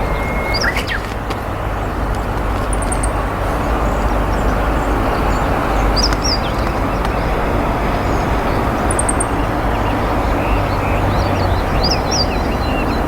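Meadow bunting singing short, high, scattered phrases and trills over a steady low rumble.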